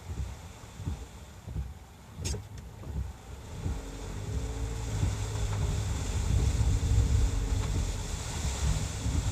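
Car driving, heard inside the cabin: a low engine and road rumble that grows louder from about four seconds in, with a short click a little after two seconds and a rising hiss of tyres on the rain-soaked road near the end.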